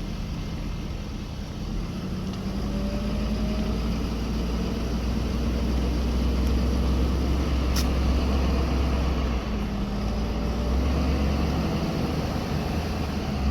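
A vehicle's engine and road rumble as it drives along slowly: a steady low hum that grows a little louder a couple of seconds in.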